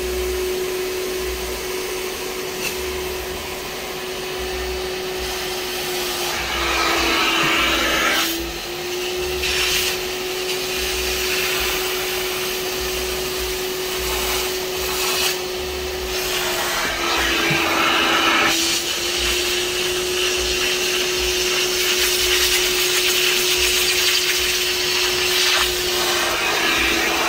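Kärcher Puzzi 10/1 spray extractor's suction motor running steadily as its upholstery nozzle is drawn over a cloth car seat, sucking up dirty water. Three times the hum drops in pitch while the rush of air gets louder, then it settles back.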